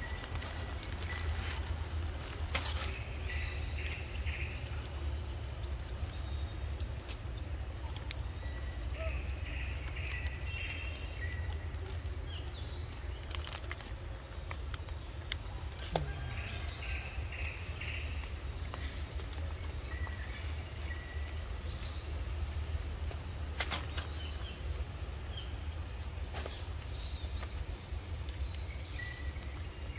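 Outdoor ambience: a steady high-pitched insect drone over a low rumble, with several short bursts of rapid chirps and a few sharp clicks.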